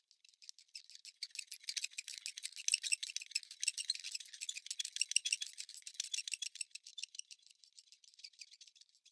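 A rattling sound effect: dense, fast, high-pitched clicking that swells in the middle and fades out near the end.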